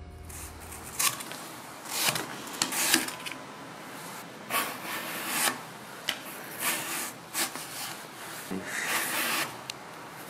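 Restored Japanese-style knife slicing thin rounds off a hand-held apple: a string of short, crisp cutting strokes through the fruit, roughly one a second.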